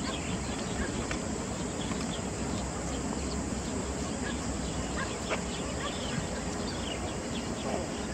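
Steady rushing of a shallow, rippling stream, with faint short high chirps scattered through it.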